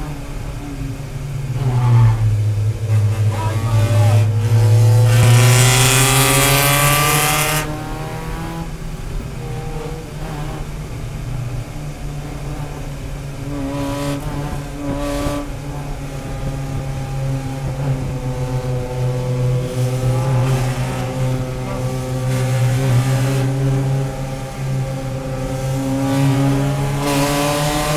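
A race car's engine heard from inside the cabin, running under throttle at around 4,000 to 4,500 rpm, its note drifting up and down with the pace of the pack. About five seconds in, a loud rushing hiss lasts a couple of seconds.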